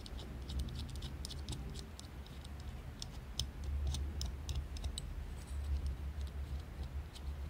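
Faint, irregular small metal clicks and scrapes as the threaded barrel-retaining piece of an Auto Nine .22 pocket pistol is turned and fitted by hand, over a low steady hum.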